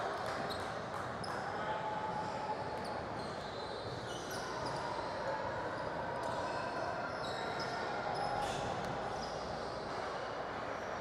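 Basketball bouncing now and then on a hardwood gym floor, over the steady echoing background noise of a large gym.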